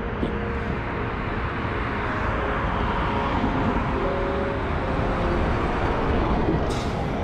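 City street traffic: a vehicle passes, its noise swelling through the middle and easing near the end over a steady low rumble.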